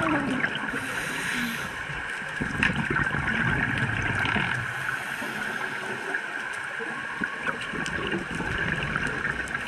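Underwater ambience heard through a dive camera's waterproof housing: a steady crackling hiss, with low gurgling rumbles of scuba breathing bubbles at times in the first half.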